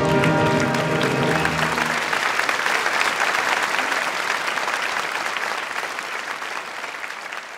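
An orchestra's final held chord rings for about the first two seconds, then gives way to an audience applauding, which slowly fades near the end.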